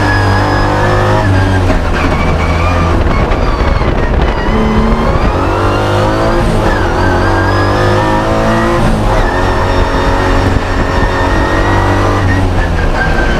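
Historic Group A race car's engine at hard throttle, heard from inside the cockpit, its pitch climbing and dropping back several times as it is shifted up through the gears.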